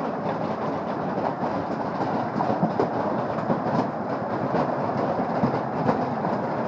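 Large hailstones pelting down: a dense, steady clatter of many impacts on the shed and yard, with a few louder hits standing out.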